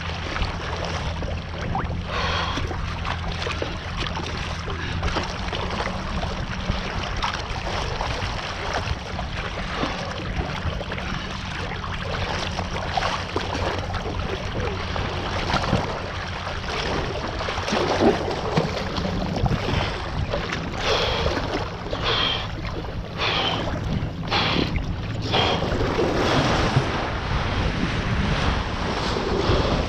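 Wind rumbling on the microphone and water rushing past a kite foil board as it rides, with a run of sharper splashes about two-thirds of the way through.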